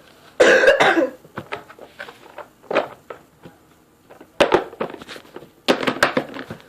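Short, breathy vocal bursts from a child, coming in four clusters; the first and loudest is about half a second in.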